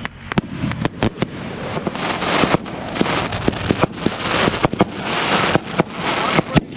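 Consumer fireworks going off in rapid, irregular succession: many sharp bangs over a continuous hissing crackle that swells and fades.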